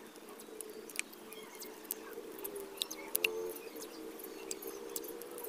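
Insulation tape being wrapped around a satellite LNB by hand, giving faint scattered crackles and clicks of the tape and fingers on the plastic housing.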